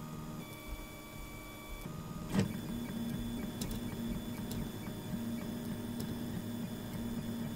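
Printrbot Simple 3D printer's stepper motors whining as they move the print head and bed, the pitch jumping with each new move. A sharp click comes about two seconds in, and after it the whine settles into a steadier tone with short breaks.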